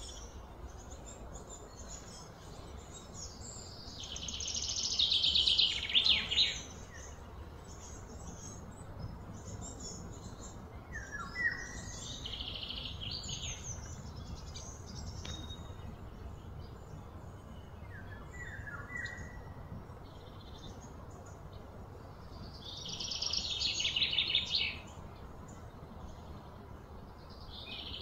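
Birds calling: four loud, rattling bursts of song, each one to three seconds long, with short falling chirps in between, over a steady low outdoor hum.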